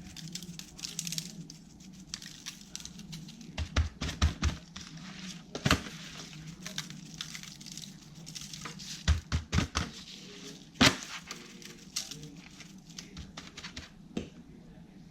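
Spice seasoning being shaken from a shaker onto fish, a dry rustling patter that comes and goes, broken by sharp clicks and knocks of the container, the loudest near the end.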